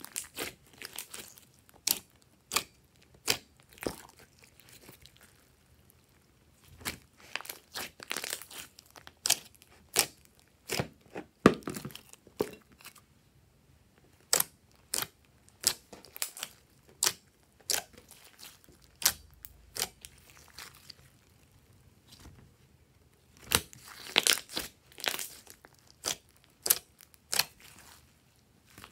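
Glossy slime being squeezed, kneaded and stretched by hand: irregular clusters of sharp clicks and pops, with short lulls between the handfuls.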